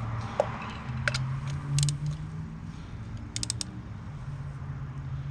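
Small sharp metallic clicks and clinks of hand tools being handled during spark plug and ignition coil work, in a few short clusters over a low steady hum.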